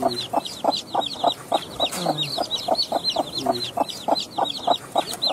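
Young desi chicks peeping rapidly and without a break, several overlapping high, falling cheeps a second. A mother hen's low clucks come in now and then underneath.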